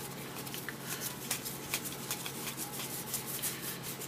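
1992 Donruss baseball cards being flipped through by hand, the cards sliding and flicking against each other in a quick, irregular run of light ticks.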